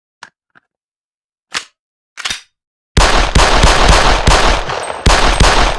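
Desert Eagle pistol shots as a sound effect: two faint clicks, two sharp single shots, then from about three seconds in a rapid string of loud shots, roughly four a second, running together into echoing reverberation.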